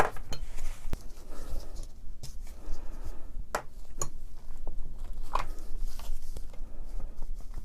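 A screwdriver working screws out of the AEG BH25 rotary hammer, with scattered small metallic clicks and knocks of the tool and parts being handled.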